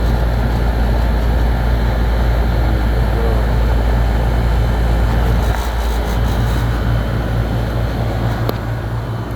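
Air-conditioning outdoor condensing unit running: a steady, loud deep hum with fan air noise over it.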